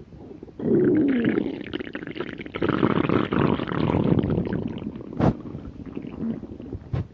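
Human stomach growling: a long, loud gurgling rumble that starts about half a second in with a falling squeal, then fades, the sign of a hungry, empty stomach. Two brief clicks come near the end.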